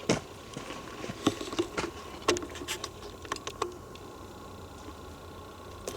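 Irregular light clicks and knocks, a dozen or so in the first few seconds, then thinning out, over a faint steady hum.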